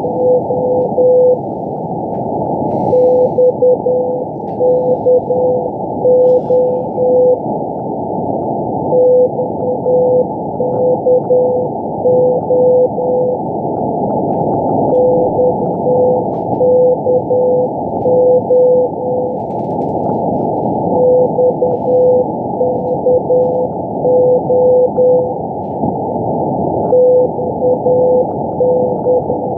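Morse code CW signal on 5198 kHz received on a shortwave SDR: a single-pitched tone keying the letters XKO (dash-dot-dot-dash, dash-dot-dash, dash-dash-dash) again and again, about every six seconds, over steady shortwave static in a narrow receiver passband.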